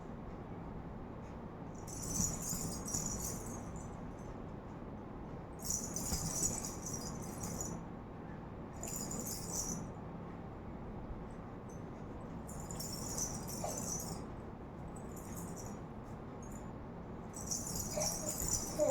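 A jingling rattle shaken in short spells of one to two seconds, about five times, with pauses between.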